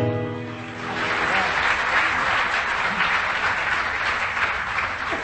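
The last notes of the ghazal's musical accompaniment fade out in the first second, then an audience applauds steadily.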